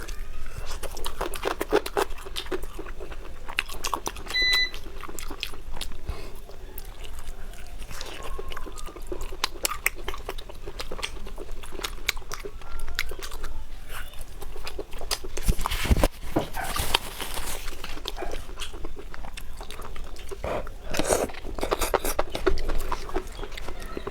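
A person chewing and biting food close to the microphone: a steady run of short, irregular crunches and wet mouth clicks.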